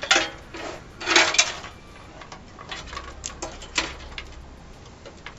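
Clicks and clatter of computer hardware being handled as the power supply's cable connectors are fitted to the motherboard, with a loud clatter about a second in and a few sharper clicks later.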